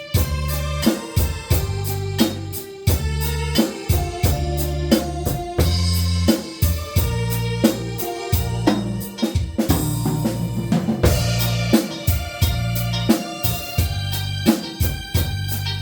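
Instrumental passage of a live pop song with no singing: an electronic organ or keyboard carries the melody over a steady drum-kit beat and bass.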